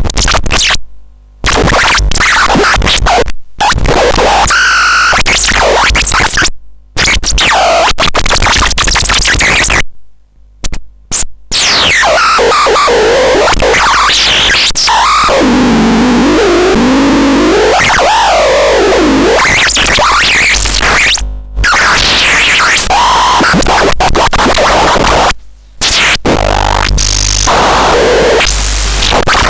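Electronic noise generator putting out loud, harsh noise with squealing tones that glide up and down. It cuts abruptly to silence and back several times.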